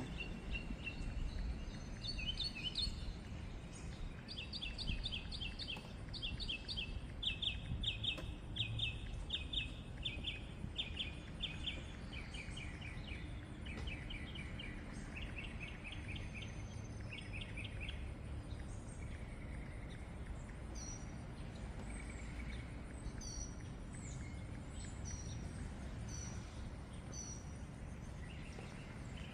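Birds singing: runs of quick repeated chirps through the first half, then short high falling chirps about a second apart, over a steady low background noise.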